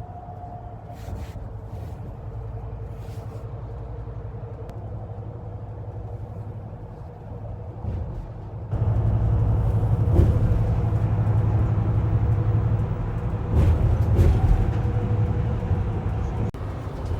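A road vehicle running, heard as a steady low rumble with engine and road noise, growing louder about nine seconds in.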